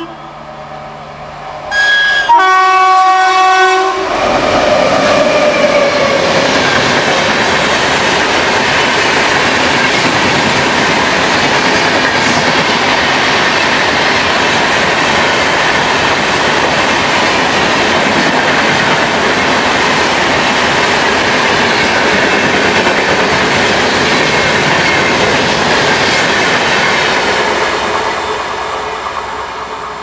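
Horn of a WAP-7 electric locomotive sounding about two seconds in, a short toot then a longer blast. Then the locomotive and its LHB coaches pass at speed, wheels clattering over the rails in a loud, steady rush that fades near the end as the train draws away.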